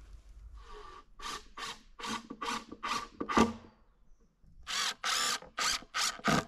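Cordless impact driver run in short trigger bursts on screws, a volley of quick bursts, then after a pause a run of longer ones from near the five-second mark. A single loud knock comes just after three seconds.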